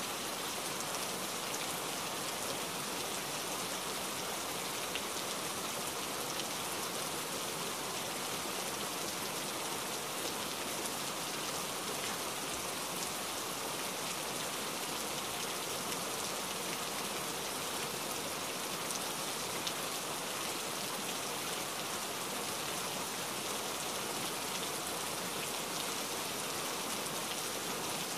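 Heavy rain falling steadily, an even hiss of drops with no let-up.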